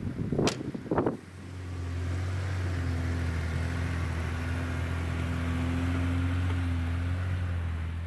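A few sharp knocks in the first second, then a truck's engine running steadily with an even low hum.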